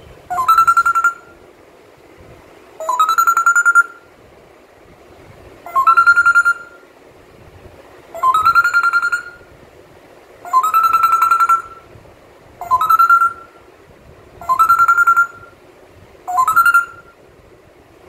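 African grey parrot repeating the same call eight times, about every two to three seconds: each a short whistle that swoops up and then holds one pitch for under a second.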